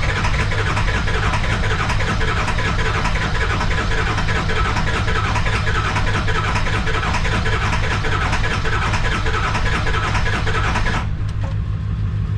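Ford 7.3 Powerstroke diesel being cranked by its starter on a jumper pack, turning over steadily without firing, until the cranking stops about eleven seconds in. A cold-blooded no-start that the owner puts down to bad glow plugs and likely bad injectors.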